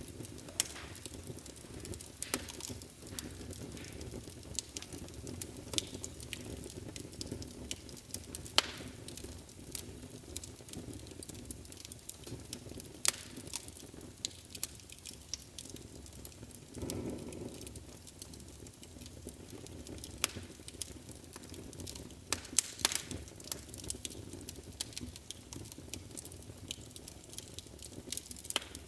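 Wood fire burning in a fireplace, crackling with frequent sharp pops over a low steady rush of flame. A brief louder rush swells about halfway through.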